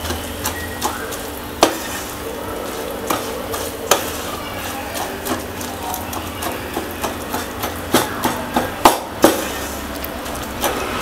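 Spatula stirring and pressing a sticky millet, date and jaggery mixture in a stainless steel pan to break up the date lumps: irregular scrapes and knocks of the spatula against the pan. The sharpest knocks come about a second and a half in, at about four seconds and in a cluster around eight to nine seconds, over a steady low hum.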